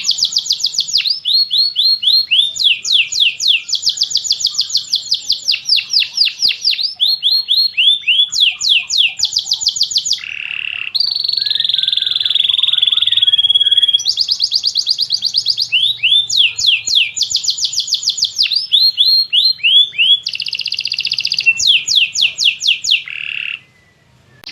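Domestic canary singing a long song of rapid trills, each phrase a fast run of repeated notes that changes to a new phrase every second or two, with a buzzier rolling passage in the middle. The song breaks off briefly near the end, then starts again.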